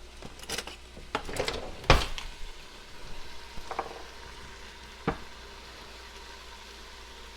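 Cubed chicken breast sizzling in oil in a large pot over medium-high heat, with a few sharp knocks and scrapes of a utensil against the pot, the loudest about two seconds in.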